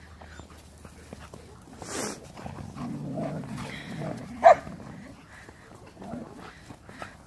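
A pack of huskies and other dogs playing in the snow: one dog gives a single sharp bark a little past halfway, with lower, quieter dog noises just before it.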